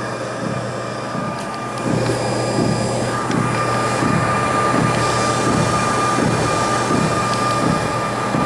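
NordicTrack 1750 commercial treadmill running, with a regular low thump about two and a half times a second over a steady motor whine; the thump, which grows louder about two seconds in, is the noise the owner reports on this brand-new machine, with nothing found physically broken.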